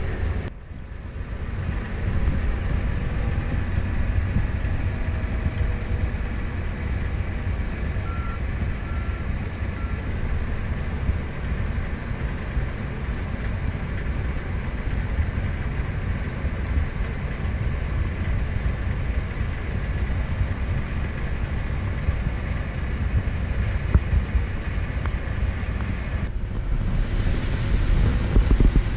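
Tractor engine running steadily with a low rumble, with three short faint beeps about eight to ten seconds in. The sound drops out briefly just after the start and again near the end.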